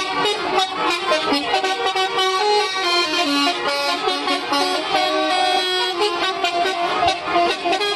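Bus telolet horn playing a tune: a continuous run of held horn notes stepping from one pitch to the next.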